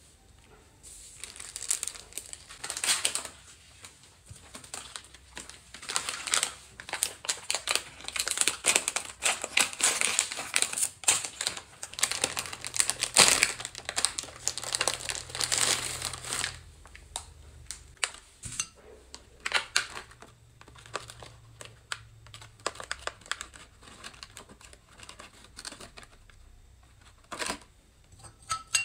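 Plastic wrapper of a pack of chocolate sandwich cookies crinkling loudly as it is opened and handled. This continues for most of the first half. Then come sparser, quieter clicks and taps as the cookies are taken from a plastic tray and set on a ceramic saucer.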